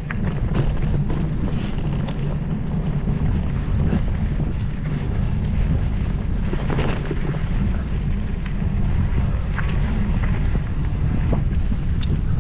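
Wind buffeting the microphone in a steady low rumble, with scattered light clicks and rattles, the strongest about seven seconds in and near the end.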